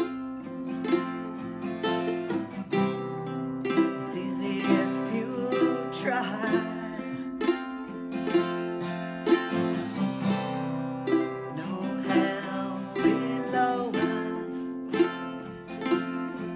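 A ukulele and an acoustic guitar playing chords together in a steady strummed rhythm.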